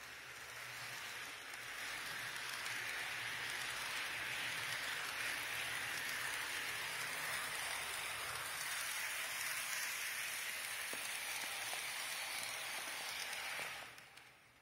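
TT-scale model ETR 600/610 high-speed train running on its track, a steady whirring rattle of motor and wheels on the rails. It grows louder over the first couple of seconds as the train comes close by, then drops off sharply near the end.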